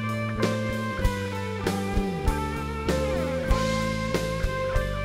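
Instrumental break of a pop-rock song: sustained guitar and keyboard-like notes, with some sliding pitches midway, over a steady drum beat.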